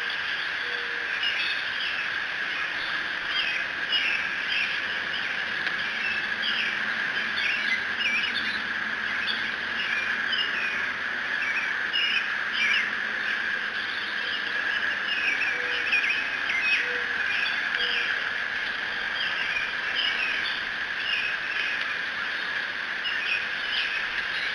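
Birds chirping: a dense run of short, high chirps repeating throughout, over a steady high-pitched hum.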